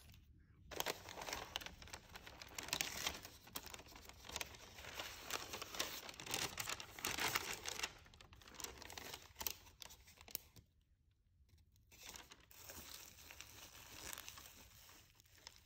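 Kraft paper wrapping being pulled open and crinkled inside a cardboard box, then crinkle-cut paper shred filler rustling as a hand moves through it. Irregular crackling, with a short lull about two-thirds of the way through and softer rustling after it.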